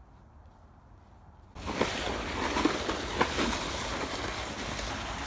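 Quiet at first. About a second and a half in, a wheeled shopping trolley bag being pulled over brick pavers starts suddenly: its wheels rumble and rattle over the bricks, with a few sharper knocks.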